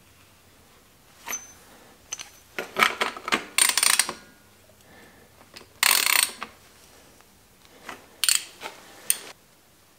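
Metal clinks and ratchet clicks from a socket ratchet and bottom-bracket tool being worked and handled while fitting bottom-bracket cups, in several short, sharp bursts. The loudest come about three to four seconds in and again around six seconds.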